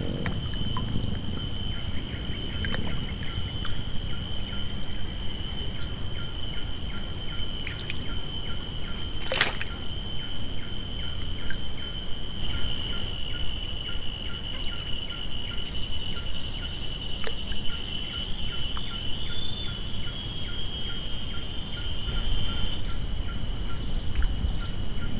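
Outdoor lakeside ambience: a steady high-pitched insect drone with a faint pulsing chirp, over a low wind rumble on the microphone. A single sharp tick sounds near the middle.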